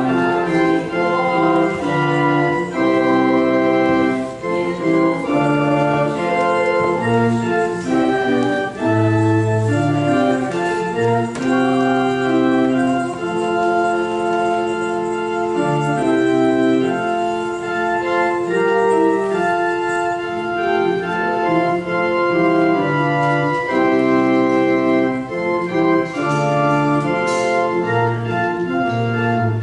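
Church organ playing a slow piece in held, sustained chords, the bass notes changing every second or two.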